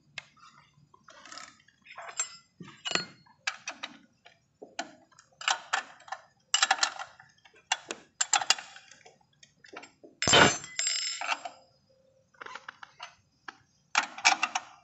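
Irregular metal clinks and clicks of hand tools and chain-drive parts being handled, with one heavier clank about ten seconds in.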